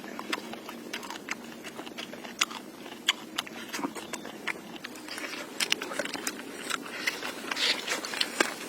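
A person chewing and crunching food close to the microphone: many irregular crisp clicks and crackles, coming thicker in the second half.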